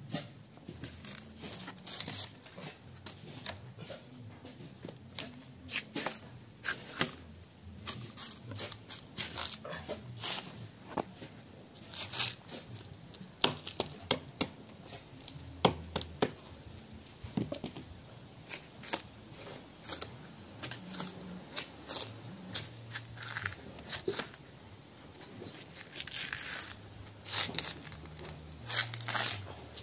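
Bark being scraped and pried off an old wooden plank with a large knife: irregular scrapes, cracks and tearing as strips of bark come away from the wood.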